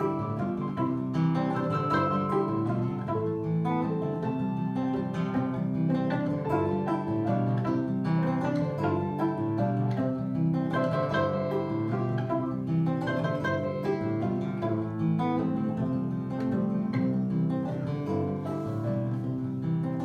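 Live band playing an instrumental break in a song, with guitar to the fore and no singing.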